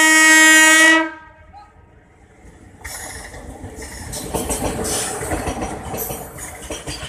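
Indian Railways electric locomotive sounding one loud horn blast for about a second, then, after a short lull, the rumble and clatter of the freight train passing close at speed, its goods wagons rattling over the rails.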